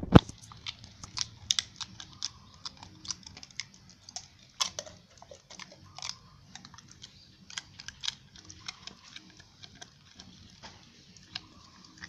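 A dog chewing and gnawing at torn plastic noodle-packet scraps: irregular sharp crinkling clicks, a few a second. One loud thump comes right at the start.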